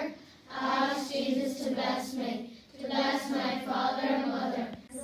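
A group of children's voices in unison, reciting a prayer in a chant-like way, with two short pauses between phrases.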